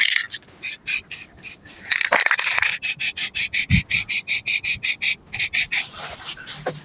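Hand sanding: rapid back-and-forth rubbing strokes, about four a second, after a shorter bout of scraping.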